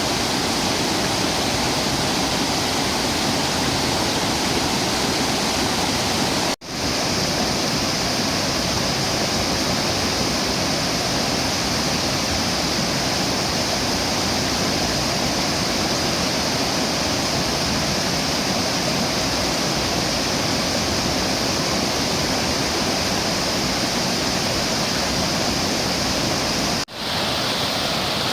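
A low, wide waterfall, about 6 m high and 50 m wide, pouring over rock in a steady, loud rush of falling water. The sound drops out for an instant twice, about six and a half seconds in and again near the end, and is a little brighter and hissier after the first break.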